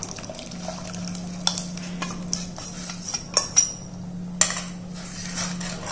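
A metal spoon stirring black rice batter into boiling water in a stainless steel pot, knocking against the pot in several sharp clinks, the loudest about four seconds in, over a low steady hum.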